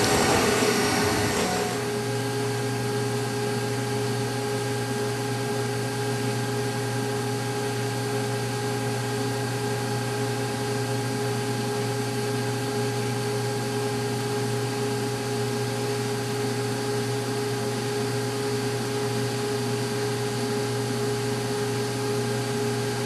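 CNC mill spindle driving a 3/4-inch ball-nose cutter on a long 6½-inch shank through Ren Shape tooling board. It makes a steady howl with several held tones, from vibration through the long-reach cutter.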